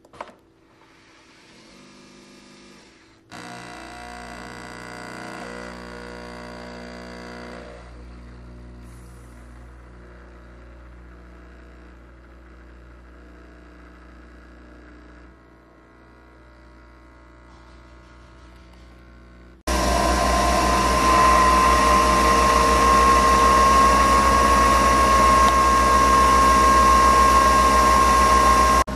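Nespresso Vertuo coffee machine brewing. A click of the top button sets off a quieter whirring and pumping that changes in stages as it prepares the capsule. About two-thirds of the way in, a loud steady whirring with a high tone sets in as it spins the capsule and pumps coffee into the cup.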